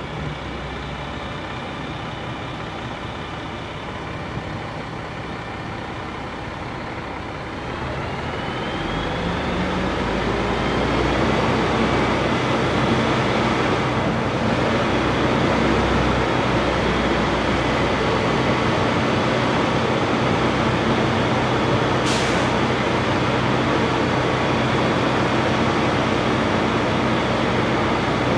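Boom truck's engine running steadily, then revving up about eight seconds in and holding at higher revs, as it does when driving a crane's hydraulics. One sharp click about two-thirds of the way through.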